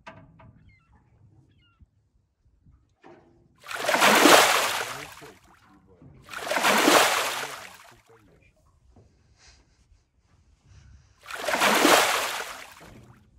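Water splashing and sloshing against the hull of a small boat in three swells, each rising and fading over about a second and a half.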